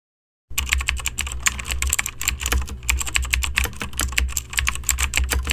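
Computer keyboard typing: rapid, irregular key clicks over a low hum, starting about half a second in.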